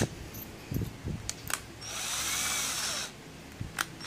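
Electric drill given a short squeeze of the trigger: the motor whines up and winds back down over about a second. Handling clicks and knocks come before and after it.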